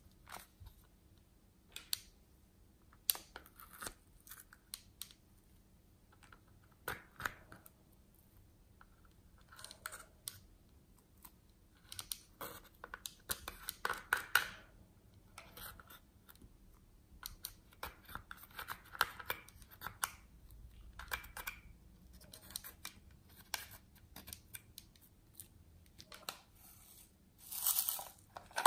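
Close-up handling of a cardboard-boxed eyeshadow palette and small plastic objects. There are scattered fingernail taps and clicks, and short scratchy scrapes as eyeshadow is dug from the palette pans with a small tool. A louder run of scratchy clicks comes near the end as a plastic toy case is handled.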